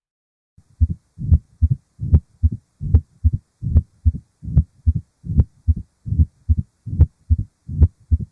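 Recorded heart sounds of mitral stenosis: a regular beat about 70 a minute, starting about half a second in. Each cycle has a sharp opening snap and a low rumbling mid-diastolic murmur.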